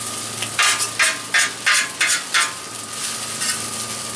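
Noodles sizzling in a discada while a utensil scrapes and tosses them: about six quick scraping strokes against the pan in the first two and a half seconds, over a steady frying sizzle.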